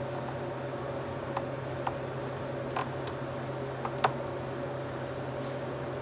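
Scattered light clicks and taps of hands and fittings on a newly fitted car battery, over a steady low hum; the sharpest click comes about four seconds in.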